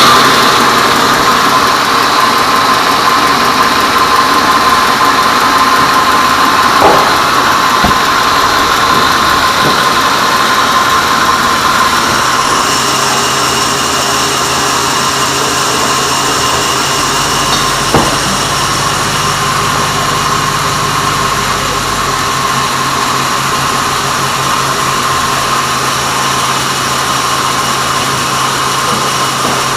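Band sawmill running with a steady whine, its level easing off slowly, with two sharp knocks, one about seven seconds in and one about eighteen seconds in.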